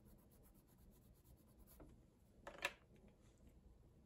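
Faint scratching of a wax crayon colouring on paper. About two and a half seconds in there is one short, louder scrape or rattle as the crayon or the crayons in her hand are handled.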